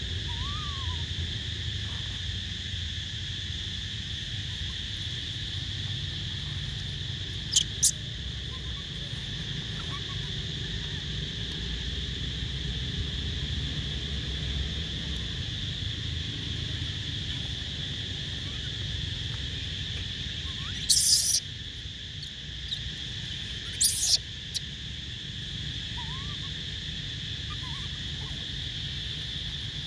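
Steady high-pitched insect chorus over a low rumble, with a few faint short chirping calls. Four brief sharp hissy bursts come through it, the loudest two in the second half.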